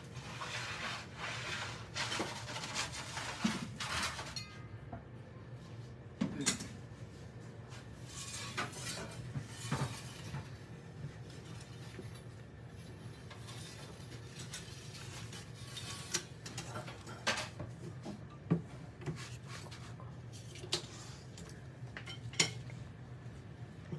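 Scattered metallic clinks and light scrapes of a metal pizza peel being worked at the mouth of a wood-fired oven, over a low steady hum.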